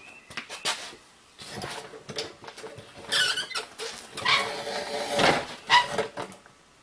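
Rustling and scraping from someone working by hand under the truck close to the microphone, in uneven bursts, with a few light clicks in the first second.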